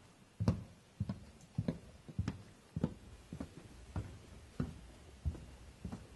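Footsteps at a steady walking pace, dull thumps just under two a second on a hard floor.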